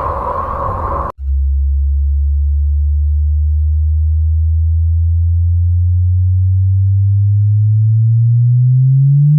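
A noisy rumble cuts off about a second in. It is followed by a single pure, low electronic tone, a sonified space signal, which slowly rises in pitch and climbs faster near the end.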